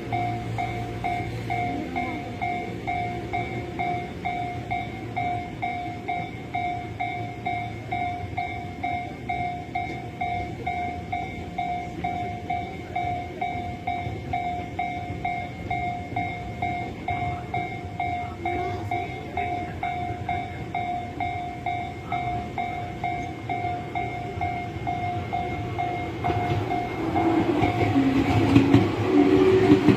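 Japanese level-crossing warning bell ringing its electronic tone about twice a second, a sign that the barriers are down and a train is coming. A Tobu Tojo Line electric train runs up and passes, louder from about 27 seconds in.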